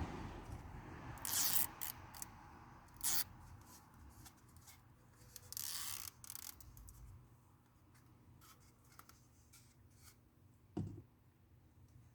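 Hands handling a plastic door sill guard, pulling and folding back the backing on its adhesive tape: short crinkles and rubs, a longer rustle about six seconds in, and a soft knock near the end.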